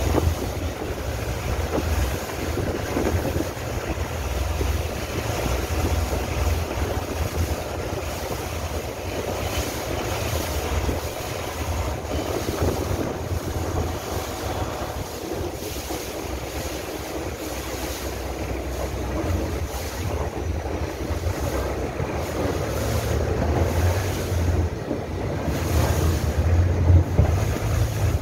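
Longtail boat under way: its engine runs steadily under the wash of water along the hull, with wind buffeting the microphone. It grows louder near the end.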